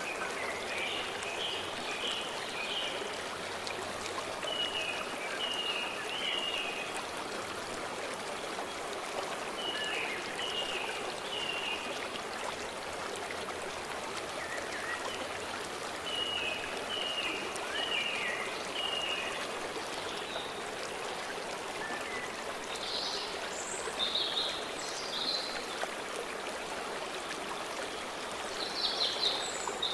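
A stream rushing steadily. Over it a songbird sings a short phrase of three or four quick notes, repeated every few seconds, and louder, higher chirps come twice near the end.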